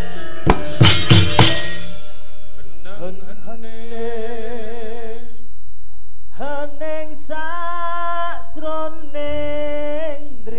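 A few sharp clattering strikes in the first two seconds, then a solo voice singing a slow Javanese vocal line in several phrases, with long held notes and a wavering vibrato.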